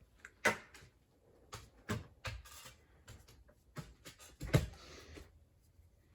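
A series of irregular knocks and clicks, about a dozen over six seconds, with a short rushing noise about four and a half seconds in.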